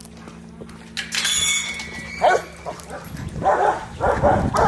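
Rottweilers barking in a quick repeated run in the second half, after a brief high squeal about a second in.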